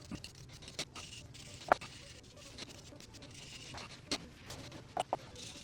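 Scattered light knocks and clicks with short bursts of rubbing and scraping, from table parts being handled and worked on by hand.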